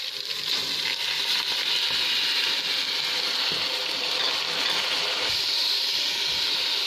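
Steady hissing sizzle from hot oil as rice is poured into a pot of browned onions and whole spices.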